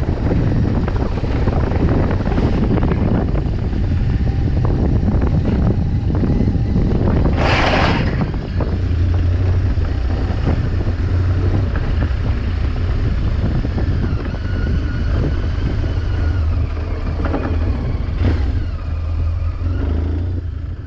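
BMW R1200GS flat-twin engine running on the move, with heavy low rumble, wind and road noise and scattered small knocks. A brief loud hiss comes about seven seconds in, and the sound fades out at the end.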